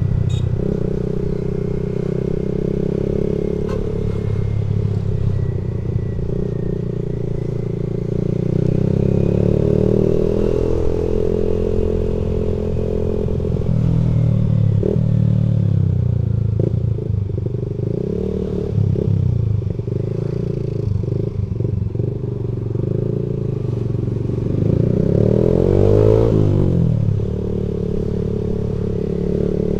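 Motorcycle engine running under way, its pitch rising and falling as the throttle is opened and eased off, with one hard rev a few seconds before the end. Rattling knocks and clatter come through in the middle stretch.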